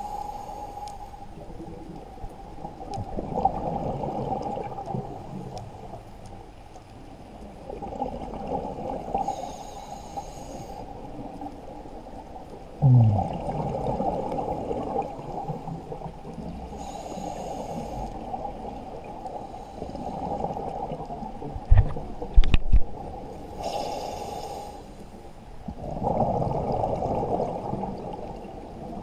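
Scuba diver breathing through a regulator underwater: a hiss on each inhale, then a gurgling rush of exhaled bubbles, repeating about every seven seconds. There is a short falling tone about halfway through and a couple of sharp low knocks a little later.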